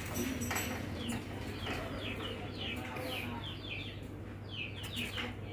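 Small birds chirping: many short chirps, each falling in pitch, repeating irregularly, over a steady low hum.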